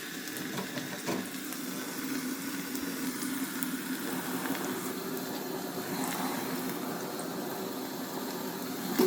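Chopped onions frying in hot cooking oil in a saucepan, a steady sizzle, with a faint knock about a second in.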